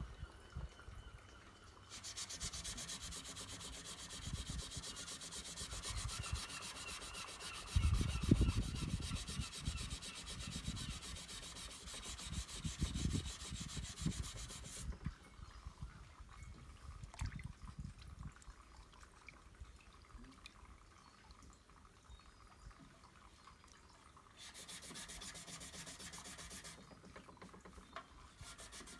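Dry sanding of hardened body filler with sandpaper: a fast, rasping scrub that runs for most of the first half, then stops. A shorter bout follows near the end, and a few low knocks of handling come in the middle of the first bout.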